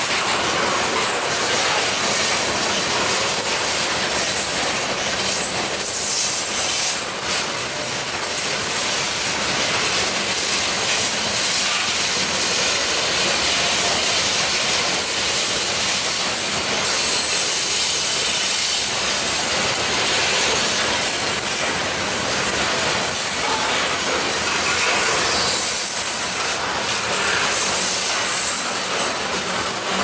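Covered hopper cars of a freight train rolling past close by: a steady, loud rush of steel wheels running on the rails.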